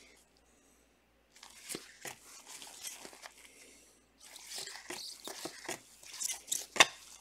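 Trading cards being flipped and shuffled in gloved hands: dry rustling and short card flicks that start after a quiet second or so, with one sharp snap near the end.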